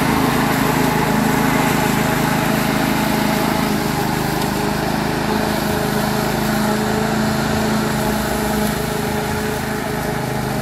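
Duricut 820 walk-behind lawn mower's 159cc engine running steadily as it cuts grass, getting a little quieter near the end as the mower moves away.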